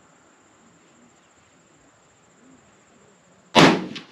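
A single loud .300 PRC magnum rifle shot fired from a bench rest, a sharp crack about three and a half seconds in that dies away over half a second, followed a moment later by a fainter second report.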